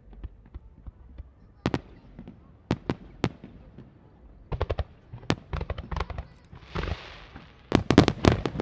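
Aerial fireworks shells bursting with sharp bangs. A few single reports give way to quicker strings of bangs, then a short hiss, then the loudest rapid volley near the end.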